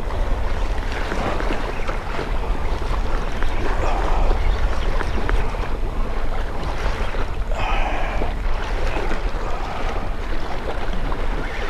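Wind buffeting the microphone, with sea waves washing against the rocks in a steady rushing noise.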